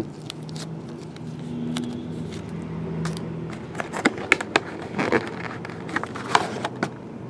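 Cardboard trading-card box being handled and opened by hand: scattered taps, clicks and scrapes of cardboard, busiest from about four seconds in. A low steady hum sits under the first half.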